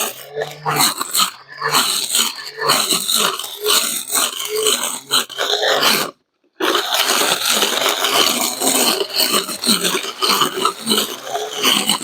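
21-volt lithium-ion cordless brush cutter running and cutting grass, the sound rough and uneven. It breaks off abruptly for about half a second around six seconds in.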